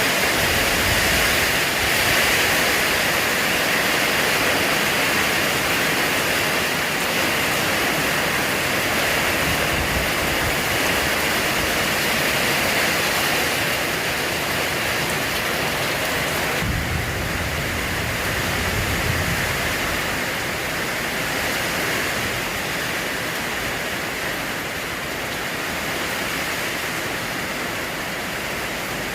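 Steady rain falling, with gusts of wind buffeting now and then; the downpour eases slightly after about seventeen seconds.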